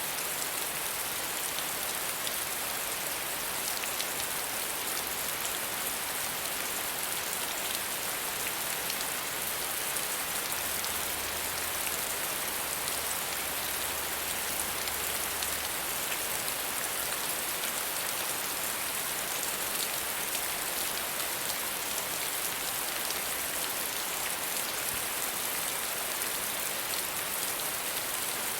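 Steady soft rain falling on a surface: a dense, even patter of drops.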